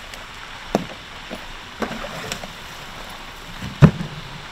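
A cardboard box being handled and lifted from the water's edge, with a few knocks and scrapes and a louder thump near the end as it is set down on the ground.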